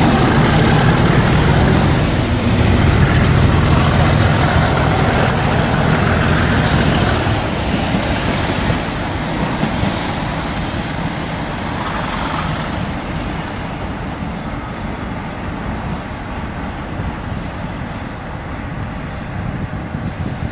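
Heavy diesel train engine rumbling at the platform, with a faint gliding whine above it. The rumble drops away about seven seconds in, leaving a quieter, steady rumble and hiss.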